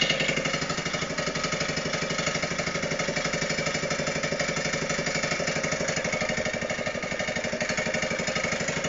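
Mini quad's small overhead-cam engine idling steadily with an even, rapid putter on a cold start, still cold and not yet warmed up.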